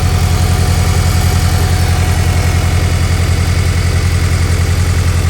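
Honda K20 inline-four engine swapped into a Subaru BRZ, idling with an even, steady pulse. This is the rough idle the owner traces to low fuel pressure, caused by the fuel pump slipping off its feed in the tank's basket.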